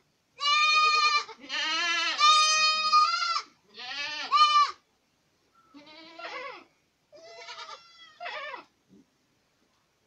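Boer goats bleating, several loud drawn-out bleats one after another in the first half, then a few fainter ones.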